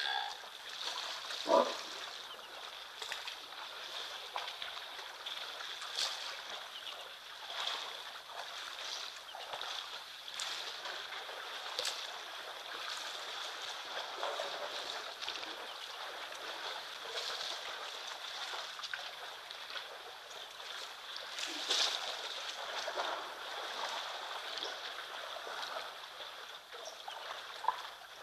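Water splashing and sloshing around a herd of Cape buffalo wading and drinking at a waterhole, in short irregular bursts over a steady high hiss. A single short loud knock comes about one and a half seconds in.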